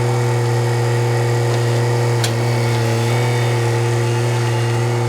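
An engine idling steadily at an even, unchanging speed, with a light knock about two seconds in.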